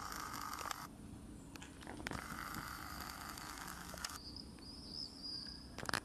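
Outdoor evening ambience: a faint hiss that comes and goes, scattered small clicks, and a high wavering chirr for about a second near the end.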